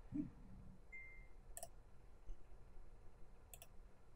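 Computer mouse button clicks, quiet and sharp: one click about one and a half seconds in and a quick pair near the end.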